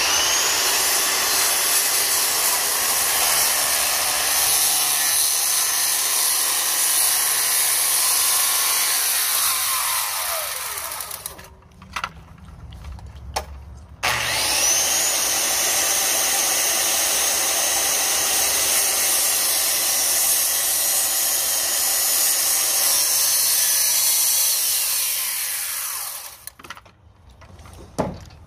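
Circular saw cutting a wooden stair stringer, twice. Each time the motor whines up to speed, runs loud and even through the wood for about ten seconds, then coasts down with a falling whine. A few clicks fall in the short pause between the two cuts.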